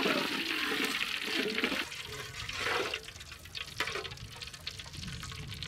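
A metal spatula stirring oil in a large metal wok: the oil swishes and the spatula scrapes the pan. It is louder for the first two seconds, then fainter with scattered scrapes.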